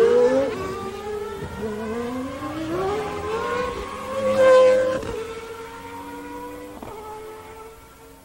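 1991 Formula One car engine at high revs: the pitch drops and climbs again as the car shifts and accelerates, loudest as it passes about four and a half seconds in, then fading into the distance.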